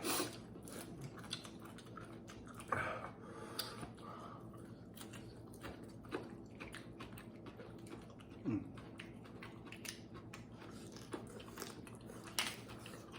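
People chewing and eating food at a table, with scattered small clicks and taps.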